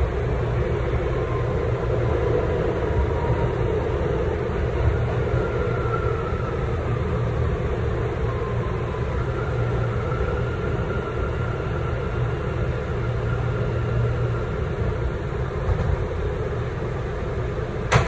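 New York City subway car in motion, heard from inside the car: a steady rumble of wheels and running gear on the track, with a faint wavering whine above it.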